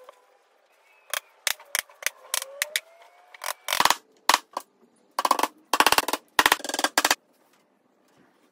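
Small hammer tapping on a wooden strip: several single knocks, then quick runs of rapid taps in the second half, like a drum roll.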